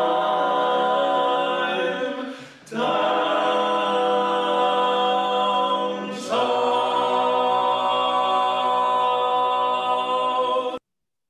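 Barbershop quartet of four men singing a tag a cappella in close harmony: three held chords, the last one long with a low bass note underneath, which cuts off abruptly shortly before the end.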